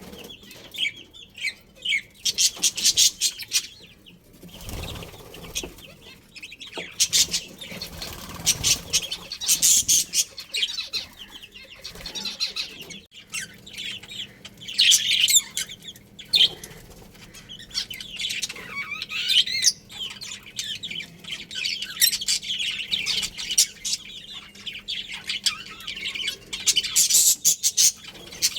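Budgies chirping and chattering in quick, high-pitched bursts, with a short low rustle a few seconds in.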